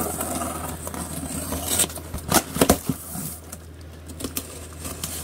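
Cardboard shipping box and its packing tape scraping and rustling under the hands as the box is opened, with a few sharp crackles about two and a half seconds in.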